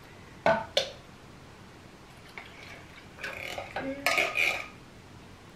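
A metal spoon clicks twice against a can of condensed milk, then scrapes the thick milk out of the can into a blender jar.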